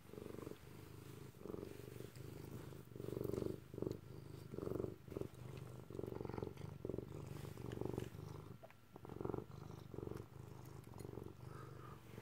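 Domestic cat purring while it eats dry kibble, the purr swelling and fading over and over with each breath.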